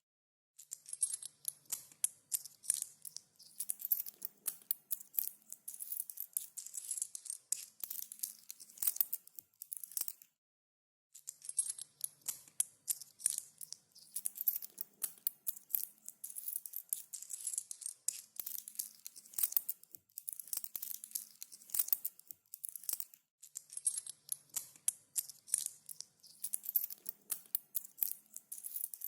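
Coins jingling and clinking together in continuous runs of small, sharp metallic clinks, broken by a silent gap of about a second roughly ten seconds in.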